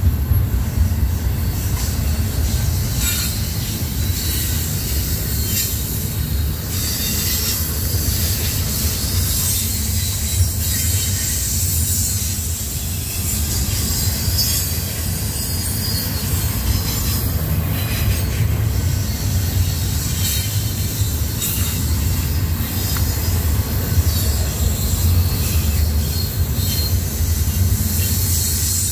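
Double-stack intermodal container train rolling past close by: the steady low rumble of the well cars, with high-pitched squealing and hissing of steel wheels on the rail.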